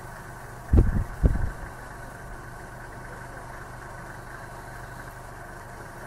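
Vehicle engine idling steadily, with two short, loud, low thuds about half a second apart about a second in.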